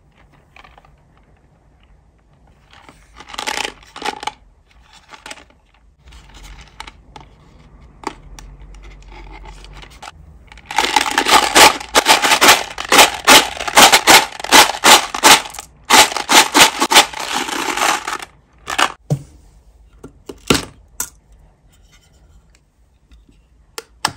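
Small hard-shelled candies clicking and rattling against a folded paper box as they are handled. A dense run of rapid clicks lasts about seven seconds in the middle, with scattered lighter taps and paper rustles around it.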